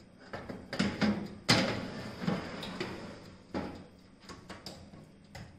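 Metal baking tray being slid onto the rack of a Morphy Richards oven-toaster-grill, giving a series of metallic knocks and clatters with a short ring after them, the loudest about one and a half seconds in, then fewer and fainter.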